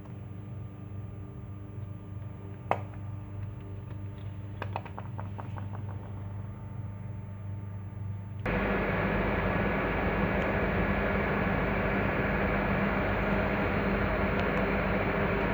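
Faulty car starter clicking: one sharp click, then a quick run of about ten rapid clicks. About eight seconds in, a much louder steady running noise with a low hum starts abruptly.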